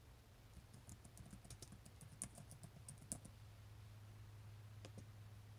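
Faint typing on a computer keyboard: a quick run of keystrokes lasting about three seconds, then a couple of single clicks near the end, over a low steady hum.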